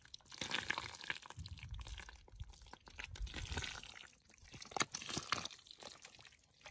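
Bare hands digging and scooping through thick wet mud, squelching and sloshing, with a couple of sharp wet smacks about five seconds in.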